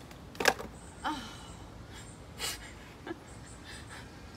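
A woman's breathy laughter: a sharp gasp about half a second in, a short voiced laugh just after a second, then a couple of quieter breathy exhales.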